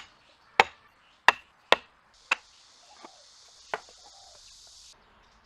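Sharp knocks of wood being struck during hand joinery work, five irregularly spaced strikes with a few lighter ticks between. A faint steady hiss comes in near the middle and stops shortly before the end.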